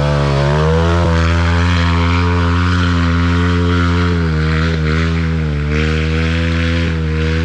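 Trail bike engine running hard at high revs as the bike climbs a steep dirt trail, rising in pitch near the start and dipping briefly a few times later as the throttle eases and opens again.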